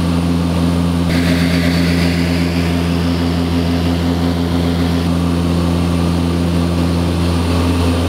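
Cabin noise of a de Havilland Canada DHC-6 Twin Otter in flight: its twin turboprop engines and propellers give a steady low drone. A hiss rises sharply about a second in and eases off around five seconds.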